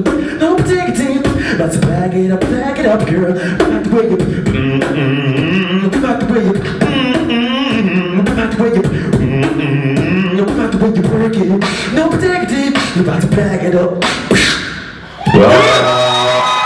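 Solo beatboxing into a handheld microphone: rhythmic vocal kick and snare sounds over a hummed bass line, with high held whistle-like tones in the middle. Near the end it drops away for a moment, then comes back loud with a rising pitched vocal sound.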